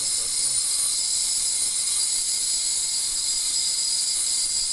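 High-power ultrasonic waveguide running in water: a steady, loud high hiss with several fixed high-pitched tones, unchanging throughout.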